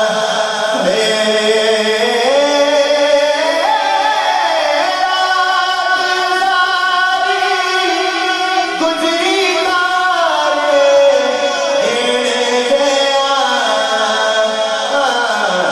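A man singing a naat, a devotional hymn, into a microphone, with long held notes that slide up and down between pitches.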